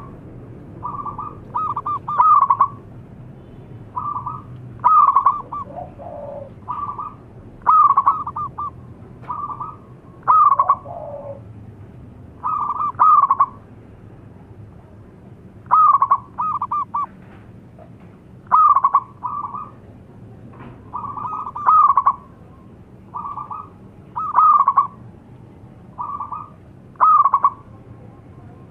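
Zebra dove (perkutut) singing its cooing song: short phrases of rapid stuttering coos, repeated every couple of seconds, some loud and some softer.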